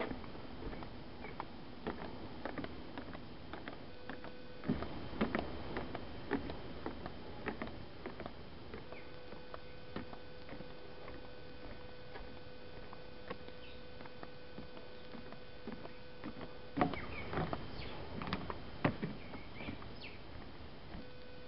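Footsteps on a wooden boardwalk and wooden stairs: irregular knocks and thuds, busiest about five seconds in and again in the last few seconds.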